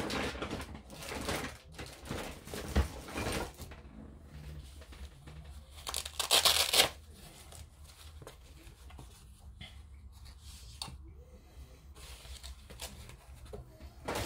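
Rustling and crinkling as hands rummage for tweezers among workbench items, with the loudest burst of crinkling about six seconds in, then fainter, scattered rustles.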